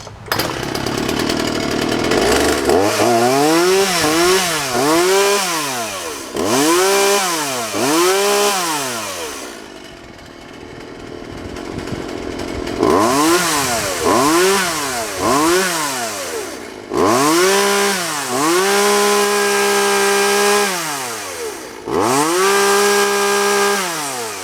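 Poulan Pro 260 42cc two-stroke chainsaw starting, then revved up and down over and over with the throttle, settling briefly to idle about ten seconds in, and twice held at high revs for a couple of seconds near the end. It runs smoothly, a very nice running saw.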